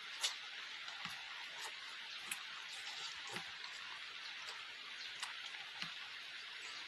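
Eating sounds: scattered short, wet mouth clicks and smacks of chewing, about one a second, over a steady background hiss.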